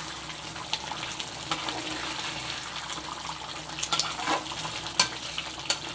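Thick coconut-and-tamarind gravy of dry-fish kuzhambu simmering and bubbling in a nonstick pan, with a steady hiss and scattered pops and ticks, the sharpest about five seconds in.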